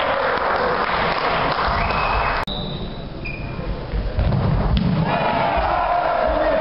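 Reverberant sports-hall din of spectators and players, broken by a sudden cut about two and a half seconds in. Near the end a futsal ball is kicked with a single sharp thud.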